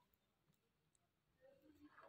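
Near silence: room tone, with a faint tick or two near the end.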